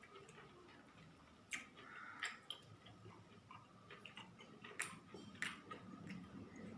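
Faint eating sounds: soft chewing with about five sharp clicks scattered through, like tableware being touched.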